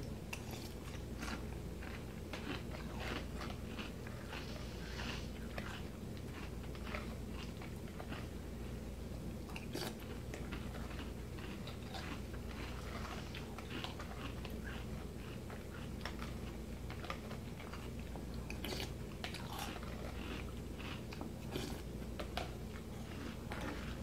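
A person chewing mouthfuls of honey graham crunch cereal in milk: a steady run of small, crisp crunches and bites, over a constant low hum.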